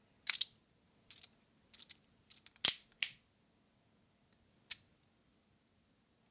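AuroraEDC Mini Neutrino 3D-printed fidget slider clacking as it is slid and snapped from position to position: about seven sharp clicks at uneven intervals, most of them in the first half and the last a little before the end. The click is the slider's crunchy snap.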